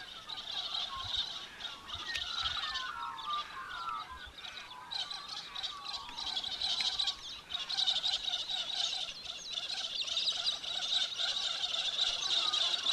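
A chorus of birds calling over a steady, dense high chatter, with warbling, gliding calls about two to four seconds in.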